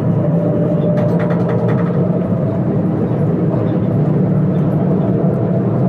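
Steady drone of a bus engine and tyre noise at cruising speed, heard from inside the cabin near the driver.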